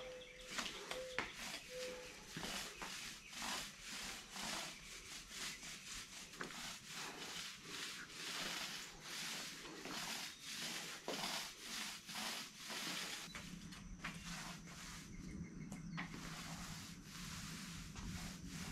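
Paint roller on a long pole rolled back and forth over a floor, a rubbing swish at about two strokes a second. A low steady hum comes in about two-thirds of the way through.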